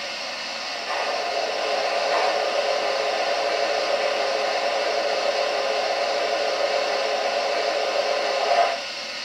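Steady hiss of let-off steam from an O-gauge model steam locomotive's sound system. It steps up about a second in, holds steady, and swells briefly just before it stops near the end.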